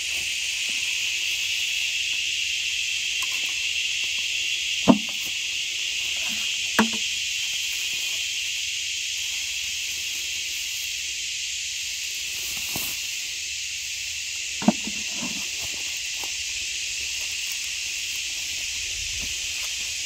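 Steady, unbroken chorus of insects droning in the field, with a few short sharp knocks about five, seven and fifteen seconds in.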